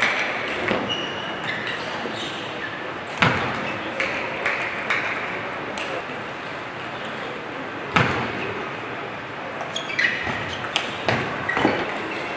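Table tennis rally sounds: the plastic ball clicking sharply off bats and table at irregular intervals, over the steady murmur of an indoor hall.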